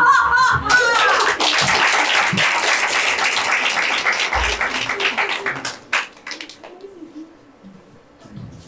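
The last notes of a sung number, then an audience applauding. The clapping fades out about six seconds in.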